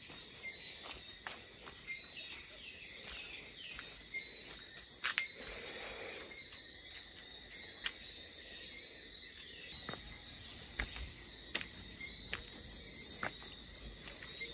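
Insects trilling steadily at two fixed pitches, with birds calling in short high whistles now and then, and the scattered taps of footsteps on concrete.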